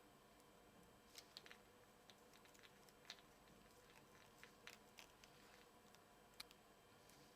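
Near silence: faint room tone with a few scattered faint small clicks.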